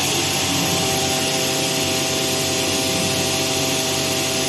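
A CNC vertical machining centre milling metal: a steady spindle whine, several fixed tones over a dense hiss of cutting noise, running at an even level.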